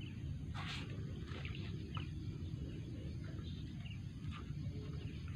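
A few short bird chirps over a steady low outdoor rumble, with a brief hiss a little under a second in.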